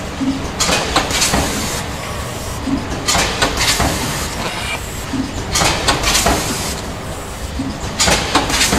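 Automatic rotary pre-made-bag packing machine running: a steady mechanical hum, with a short burst of clatter and air hiss about every two and a half seconds as its pneumatic grippers work through each cycle.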